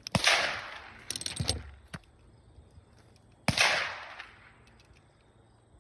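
Handgun shots: two loud single shots, one just after the start and one about three and a half seconds in, each followed by a ringing echo that dies away over about a second. Fainter sharp reports fall between them.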